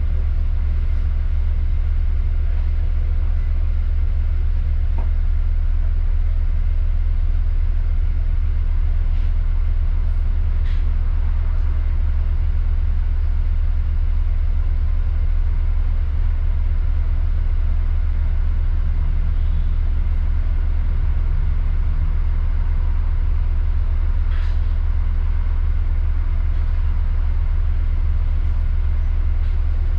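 Steady low rumble of a bus on the move, its engine and road noise running evenly, with a couple of faint clicks or rattles.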